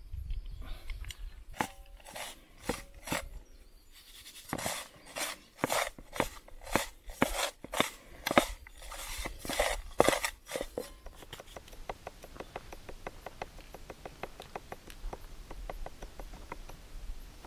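Food-preparation handling: irregular sharp knocks and clicks, then a fast, even run of light ticks, about five a second, from about eleven seconds in.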